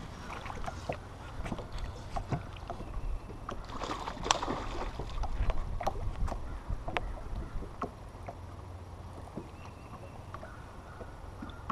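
Small waves lapping and slapping against a bass boat's hull in short, irregular knocks over a steady low rumble, louder and splashier for a moment about four seconds in.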